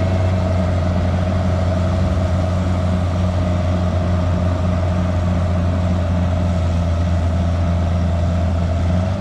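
Kubota rice combine harvester's diesel engine running steadily, a loud, even low drone.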